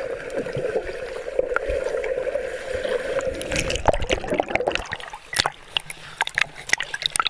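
River water gurgling and sloshing close to the microphone for about four seconds, then scattered splashes.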